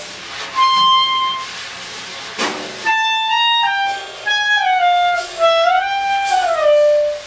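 A solo wind instrument playing a free-jazz line. A held high note comes first, then a phrase that slides and bends down, swells back up and settles on a long lower note. One short percussive hit falls about two and a half seconds in.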